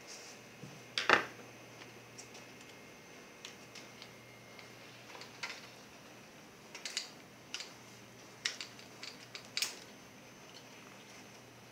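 Small sharp clicks and taps of plastic and metal netbook parts being handled during disassembly, with one loud click about a second in and a run of lighter clicks in the second half.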